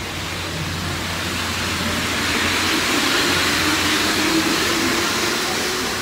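Paris Métro train pulling out along the platform, its running noise swelling to a peak about three to four seconds in and then fading as it leaves.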